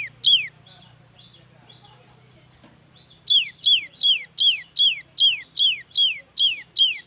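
Cinereous tit (gelatik batu) singing: a series of loud, sharp down-slurred whistled notes, about two and a half a second. One note opens, then a pause of about two and a half seconds with only faint soft notes, then a run of about ten notes.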